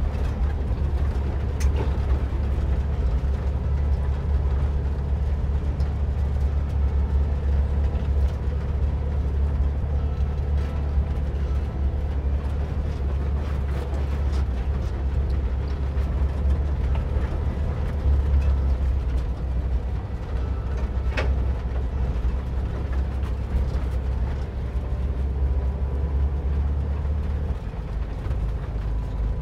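1958 VW bus's air-cooled flat-four engine running steadily as the bus drives a rough dirt trail, with a couple of sharp knocks, the loudest about 21 seconds in. The low drone drops a little near the end.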